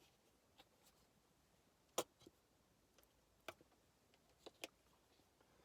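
Near silence broken by about six small, sharp clicks and taps, irregularly spaced, the loudest about two seconds in: the sound of handling a ketchup bottle and a plastic noodle pot.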